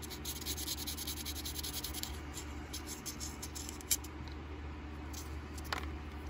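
Sandpaper rubbed by hand in quick back-and-forth strokes on a metal part of a disassembled Buck Spitfire folding knife, smoothing off a machining burr. The scratchy strokes thin out and stop about four seconds in, with a light click near then.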